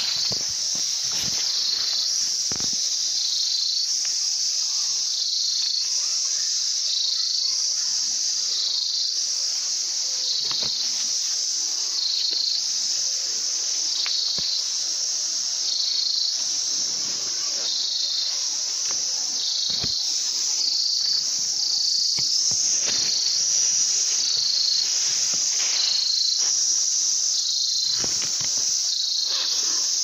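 A dense, steady, high-pitched insect chorus that pulses about once a second, with a few faint knocks and rustles scattered through it.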